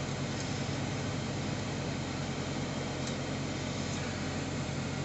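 Steady low hum of an idling diesel semi-truck engine, with a fan-like hiss and no change in pitch.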